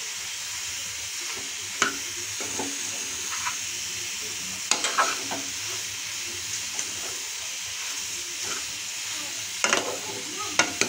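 Spine gourd pieces frying with a steady sizzle in a kadai while a metal spatula stirs them, with a few sharper scrapes of the spatula against the pan about two, five and ten seconds in.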